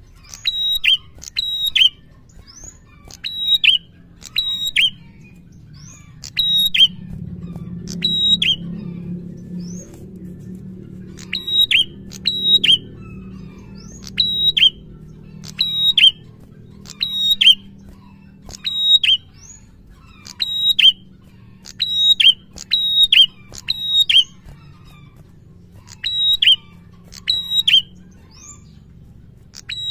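Ashy tailorbird (prenjak) singing persistently: a long run of short, sharp, high notes that slide steeply downward, mostly in quick pairs, repeated every second or two.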